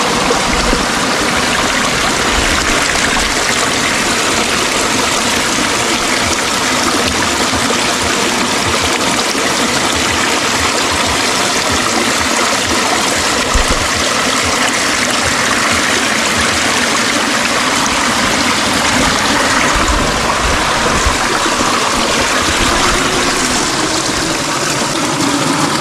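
Water of a small rocky creek running and splashing steadily over a little cascade.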